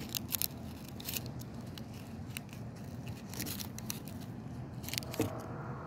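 Dried, fibrous mango seed husk being pried open by hand, giving scattered crisp crackles and snaps as the husk splits and tears away from the seed.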